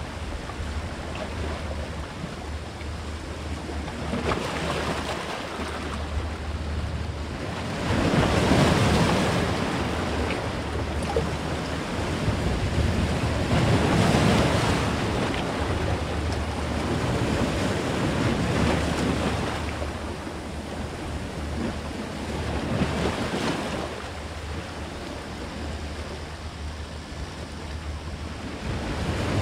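Sea swell washing against shoreline rocks, rising and falling in slow surges several seconds apart, with wind rumbling on the microphone.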